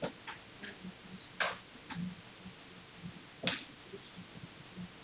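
A few light, scattered taps and clicks over a low steady hiss, the two sharpest about one and a half and three and a half seconds in.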